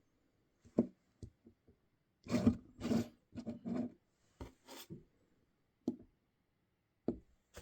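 GoPro's loose folding mounting fingers knocking and rattling in their hinge: a few sharp knocks, then longer scraping rattles from about two to five seconds in, then two more knocks. The knocking comes from play in the hinge of the folding fingers, a fault in the mount.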